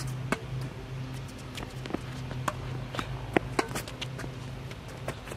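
Tennis ball struck by rackets and bouncing on an outdoor hard court during a rally: a string of sharp pops and knocks, the loudest about three and a half seconds in, over a steady low hum.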